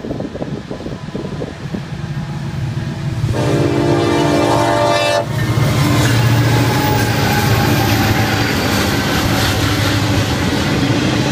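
Florida East Coast Railway freight train passing close by: the lead diesel locomotive sounds one horn blast of about two seconds, and then the locomotives' diesel engines pass loudly, followed by wheels clattering on the rails as the intermodal cars go by.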